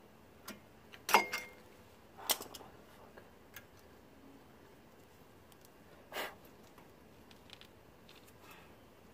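Small metal brake clips clicking and clinking against the caliper as they are fitted by hand: a handful of sharp clicks, the loudest about a second in with a brief metallic ring.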